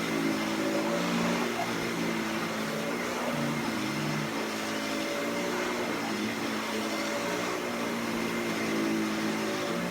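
Dyson DC65 Animal upright vacuum cleaner running: a steady rush of air over a low motor hum whose pitch shifts up and down.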